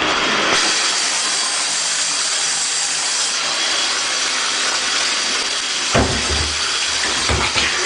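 Steady rushing of water running from a tap into a sink, with a few dull thumps near the end as the wrapped turkey in it is handled.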